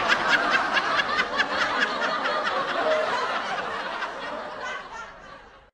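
Laughter in short pulses that grows fainter over the last two seconds and dies away.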